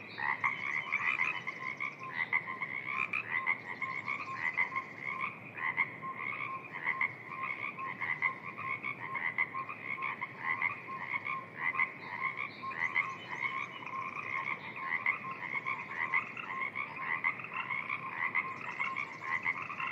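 A dense spring evening chorus of frogs: many overlapping short croaks repeating continuously without a pause.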